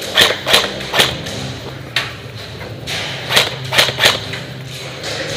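Airsoft guns firing single shots in quick sharp cracks: three in the first second, one at about two seconds, and three more near the four-second mark, over a steady low hum.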